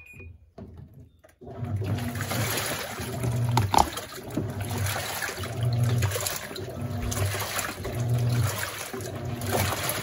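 Panasonic NA-F140B6 top-loading washing machine agitating its load of jeans in rinse water: water sloshing and churning, with the motor's low hum swelling and easing about once a second as the wash action turns back and forth. It starts about one and a half seconds in.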